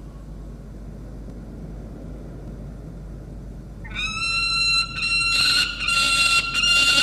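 Young peregrine falcon squawking loudly, starting about four seconds in: long, harsh, steady-pitched wails with brief breaks. Before that, only a low steady rumble.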